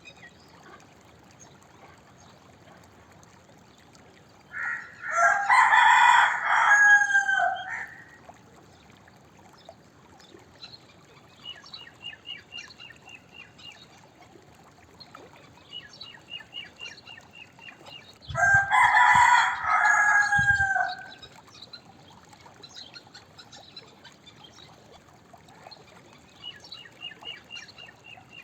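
A rooster crowing twice, each crow a loud call of about three seconds, the second some thirteen seconds after the first. Faint rapid ticking calls sound in the background between the crows.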